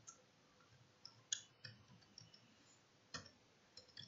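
Faint computer-keyboard keystrokes, a handful of short irregular clicks, as a reference code is typed in.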